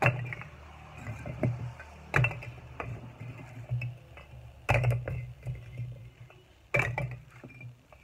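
Fired red clay bricks clinking and clacking against each other as they are lifted off a stack and put down. Four loud knocks about two seconds apart, with lighter clinks between.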